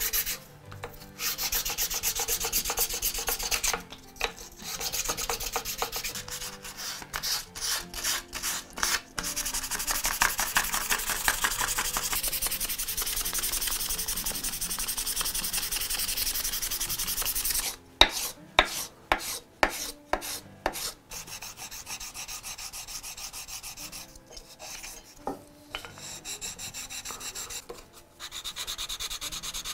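Hand-sanding the wood-and-brass parts of a bevel gauge on sandpaper, in back-and-forth strokes. The strokes come separately at first, then run together steadily for a while; a few loud single strokes follow, and the rubbing is quieter near the end.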